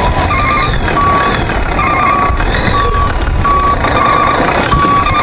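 Truck reversing alarm beeping, short high beeps repeating about once a second, some steady and some warbling, over a loud, steady rumble of noise.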